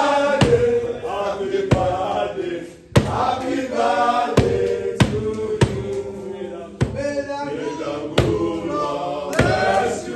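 A group of voices singing or chanting together, with a sharp beat roughly once a second.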